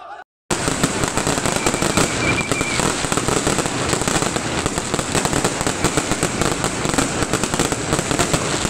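Fireworks crackling and popping, many sharp little bangs in rapid, dense succession. The sound starts suddenly about half a second in and keeps an even level, with a short high whistle about two seconds in.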